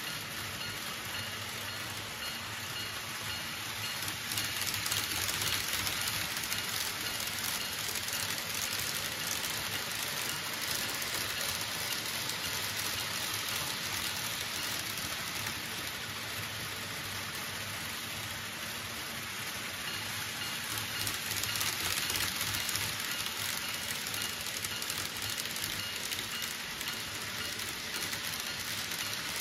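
Model trains running on layout track: a steady hissing rattle of small wheels on the rails and whirring motors, swelling a little about five seconds in and again about twenty-two seconds in as trains pass close by.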